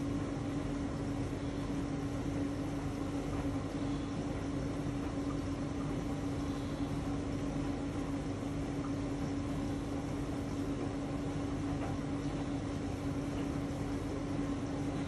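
Bosch Series 4 front-loading washing machine running a wash, its drum turning a heavy, water-laden blanket, with a steady motor hum.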